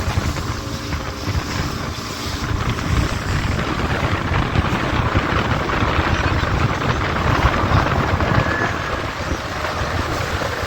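A motorboat under way at sea: a steady engine and water rush, with wind buffeting the microphone.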